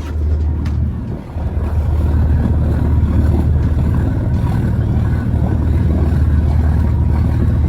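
Twin 25-year-old Volvo mechanical diesel marine engines idling steadily, warming up on their first run after a long cold winter and sounding healthy. There is a brief dip in level about a second in.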